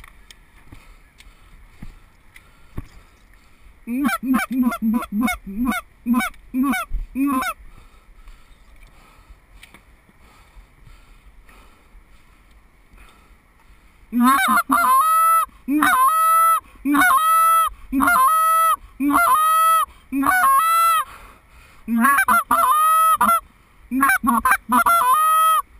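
Loud goose honks in two runs: a quick string of about ten short honks, then after a pause of several seconds a longer series of drawn-out honks, mostly about one a second, each rising and then holding its pitch.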